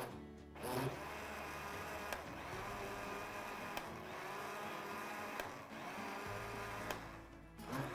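Countertop blender running steadily, blending yogurt, milk, sugar and pineapple into a lassi. It starts up about a second in and stops near the end.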